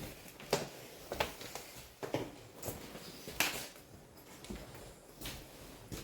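Footsteps on a hard floor: a run of irregular, separate steps about one a second.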